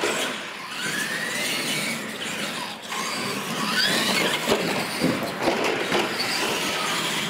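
Radio-controlled monster trucks racing across a concrete floor: their motors and drivetrains whine, rising in pitch as they are throttled up, with tire squeal and a sharp knock about halfway through as a truck goes over a ramp.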